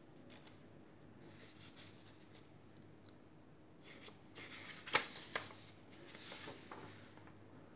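Paper rustling as hands handle the pages of a book, with a louder stretch of crinkling and a sharp crackle about five seconds in.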